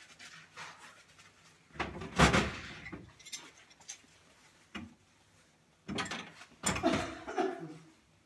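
Handling noises from work on the pipework under a kitchen sink: clunks and rustles in two bouts, about two seconds in and again around six to seven seconds in, with a single sharp click between them.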